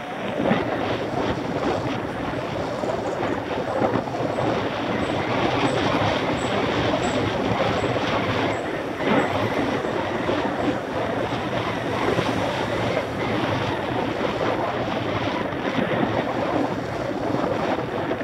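Mountain bike ridden along an asphalt road, heard through a camera mounted on the bike: a steady noisy rattle of the bike and the road.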